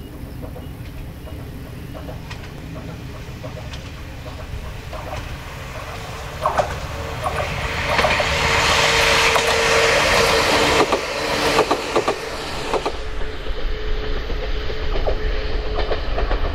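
Sangi Railway 101-series electric train approaching and passing, its wheels clattering over rail joints, with a steady whine. The running noise builds to a loud hiss about halfway through and eases off a couple of seconds later.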